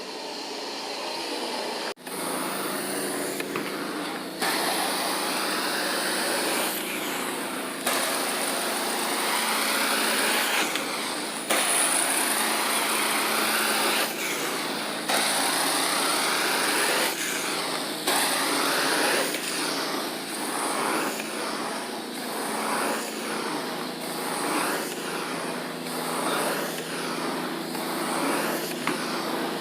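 Carpet cleaning machine's vacuum motor running steadily with a hiss of suction, its level jumping abruptly several times, then swelling and falling about once a second as the tool is worked back and forth over the carpet.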